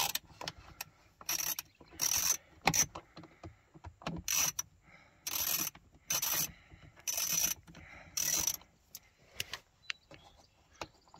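Hand socket ratchet clicking in short bursts as it backs a screw out of a car's door panel, about eight strokes roughly a second apart, with a few lighter clicks near the end.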